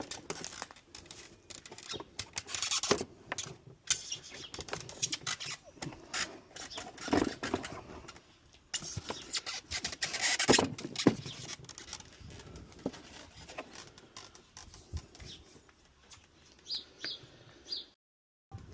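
Plastic housing parts of a Kärcher K-series pressure washer being handled, slid into place and clicked together: irregular clicks, knocks and rattles, with a louder knock about ten seconds in.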